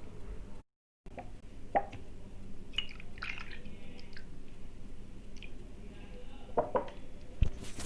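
Slate pencils being handled: a few light clicks and taps, a short cluster of small clicks about three seconds in, and a sharper knock near the end, over a faint steady hum.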